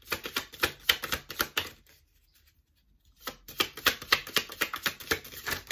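A tarot deck being shuffled by hand: a quick run of card flicks, a pause of about a second, then another quick run.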